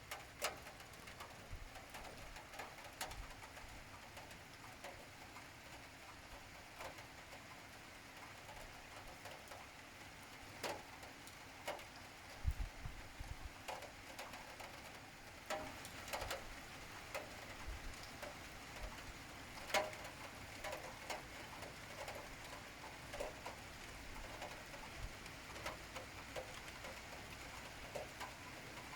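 Steady rain, a soft even hiss, with heavy drops or drips tapping irregularly on hard surfaces, a few of them louder than the rest.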